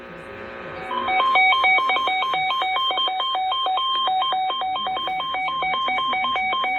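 Weather alert radio's electronic alarm sounding for a severe thunderstorm warning: a loud, rapid warble that flips between two pitches several times a second, starting about a second in.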